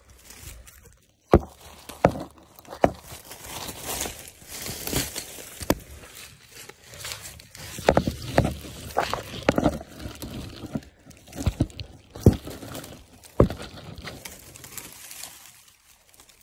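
Footsteps and a body pushing through dry brush and woody debris, with twigs and branches crackling and snapping underfoot in a string of sharp snaps and knocks.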